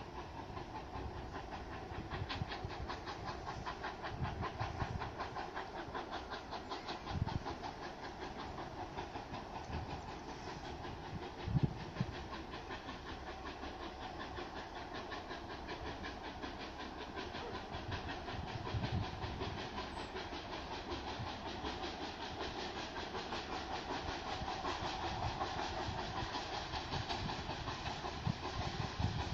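ČSD class 423.0 steam locomotive 423.0145 working hard up a grade, still some way off: its exhaust beats in a rapid, even rhythm over a hiss of steam, growing slightly louder toward the end as the train approaches. A few low thumps stand out.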